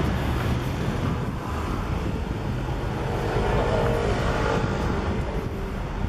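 Street ambience of passing car traffic, a steady low rumble, with some wind on the microphone.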